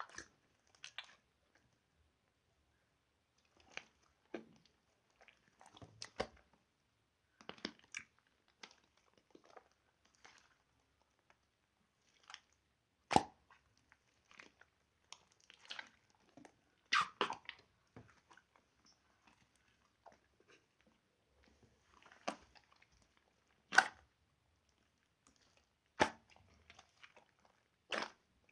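Slime being pressed and squeezed by hand: irregular short sticky crackles and squishes with quiet gaps between, and a handful of sharp loud pops scattered through.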